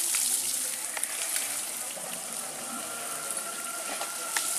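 Water spraying from a garden hose onto an elephant during its bath: a steady hiss with scattered small splashes.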